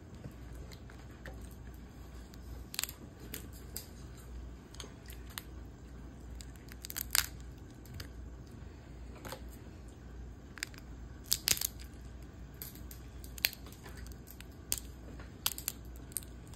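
Cooked Maryland blue crab being picked apart by hand: its shell and body cracking and tearing in scattered, irregular snaps, a few sharper than the rest.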